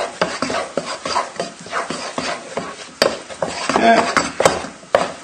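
A spoon stirring thick mashed potato in a saucepan to melt in butter, in quick repeated strokes, the spoon knocking against the pan with one sharp knock about three seconds in.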